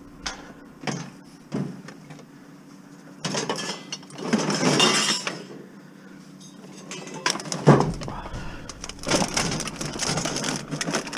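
Scrap being shoved and shifted in a crammed van's cargo area: a few sharp knocks of a metal wire rack, a long rustle of bags and junk, one loud knock a little after halfway, then a run of clattering near the end.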